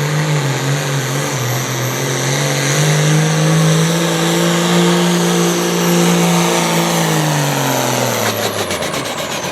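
Turbocharged diesel engine of a 9,000-pound Pro Farm pulling tractor running hard under load. Its pitch climbs over the first few seconds, holds steady, then drops off near the end as the engine comes down off the pull.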